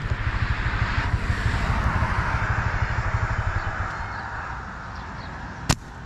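Motorbike engine idling with a low, even chug under a steady hiss, which eases off a little after about four seconds. A single sharp click near the end.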